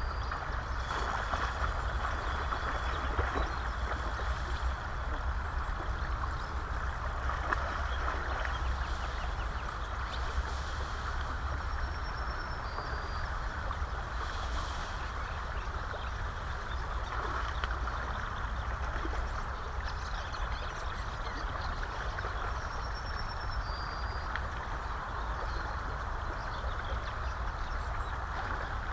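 River water rushing steadily past the bank, under a constant low rumble, with a few faint, short, high bird chirps.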